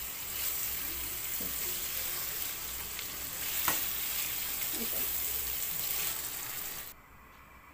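Prawns and onion masala sizzling in a pan while a spatula stirs and scrapes them, the prawns being dry-fried in the spices without water. One sharp knock about three and a half seconds in, and the sizzle cuts off suddenly near the end.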